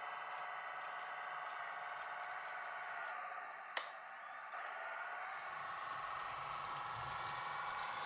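Electric drive of a 1/16 metal RC Caterpillar D5G LGP bulldozer whining steadily as it tracks over dirt, with a light tick about twice a second. There is a sharp click about four seconds in, then the whine dips and climbs again and a low rumble joins as the dozer backs up.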